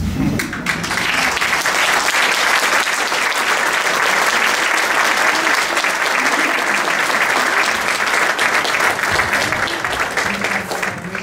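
Audience applauding: many hands clapping in a dense, steady patter that swells within the first second and dies away near the end.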